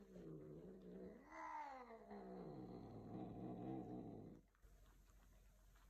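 A Bengal cat yowling during mating: one long, drawn-out caterwaul that rises in pitch about a second in, then sinks low and stops suddenly about four seconds in.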